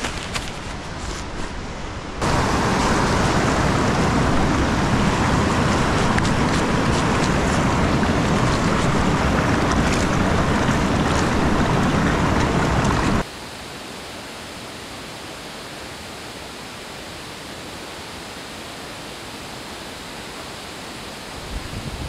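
Rushing water, a steady, even rush with no rhythm. It is loud from about two seconds in, then drops suddenly at about thirteen seconds to a quieter steady rush.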